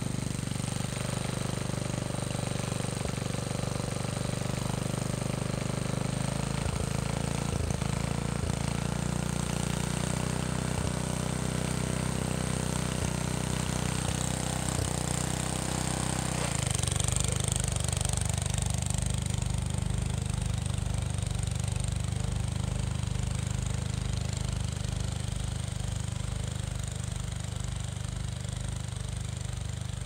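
Engine of a 1960 Snow Bird walk-behind snowblower running steadily, with a few sharp knocks in the first half. About halfway through its note changes and a slow low pulsing sets in as the machine is pushed into the snow and starts throwing it.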